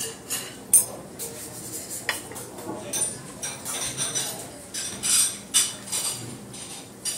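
Cutlery and dishes clinking and clattering in a restaurant: a string of sharp clinks with a ringing edge, the loudest about a second in and another cluster around five seconds.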